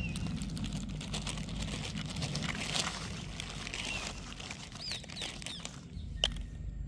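Stick-shaped firecrackers spilling from a plastic packet and clattering onto a toy RC car and the dirt, a rapid patter of small clicks with the packet crinkling, followed a little after six seconds by a single sharp click as another cracker is set down. Short bird chirps sound over it, and wind rumbles on the microphone.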